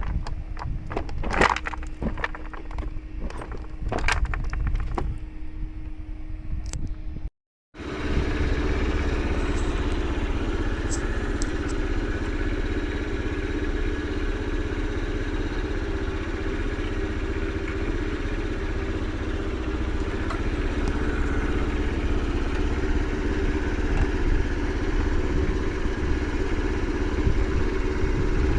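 Scattered clicks and knocks of hands and parts being handled. After a brief cut to silence a little over seven seconds in, a commuter motorcycle's small engine runs steadily.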